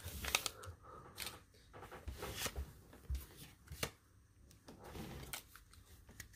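Pokémon trading cards being handled and slid against one another as a freshly opened pack is sorted: a run of light paper flicks and clicks, the sharpest a few seconds apart.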